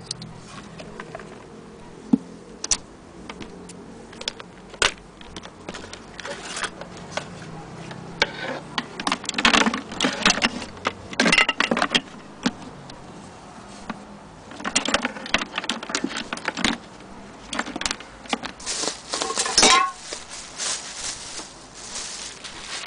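Clicks, knocks and rustling from hands moving a sewing machine's power and foot-pedal cords around inside its carrying case, in bursts, with a brief squeak near the end.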